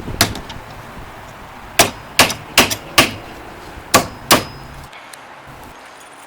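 Hammer blows on metal, about seven sharp strikes with short pauses between them, the last about four and a half seconds in.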